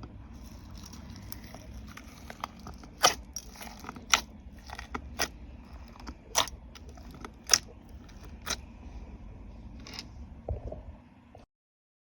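Slime being worked by hand, giving sharp sticky pops and crackles, about a dozen at irregular intervals over a soft squelching background. The sound cuts off suddenly near the end.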